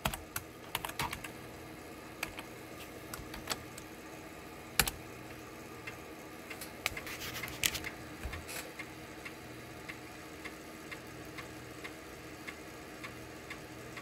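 Computer keyboard keys clicking as a DOS copy command is typed, with a single key press a little before 5 s. Then a floppy disk drive reads as files are copied off the disk: a short cluster of clicks, then regular ticks of the drive head stepping, about two a second, over a steady low hum.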